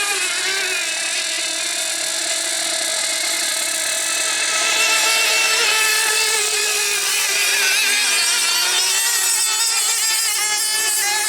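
Several racing outboard motors running at high revs together, a dense high-pitched blend of overlapping engine notes that waver slightly in pitch.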